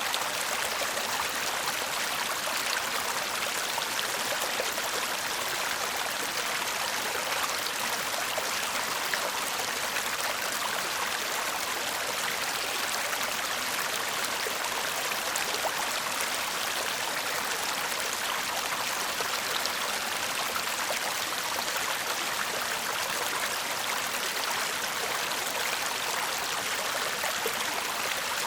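Shallow stream babbling and trickling steadily over stones, an even, unbroken water sound.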